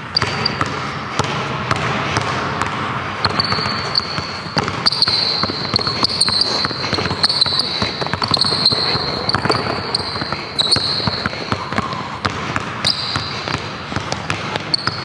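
Basketball dribbled on a hardwood gym floor: a run of bounces. High-pitched squeaks come in stretches through the middle and again near the end.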